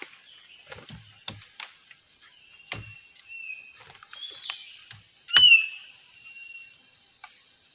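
Pied triller (kapas tembak) calls: short, repeated whistled notes, the loudest about five and a half seconds in, with several sharp knocks in between.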